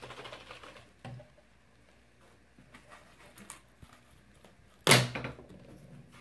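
Rubber balloon rustling on a plastic bottle's neck, then a sudden loud snap about five seconds in as it comes off the bottle, trailing off over about half a second.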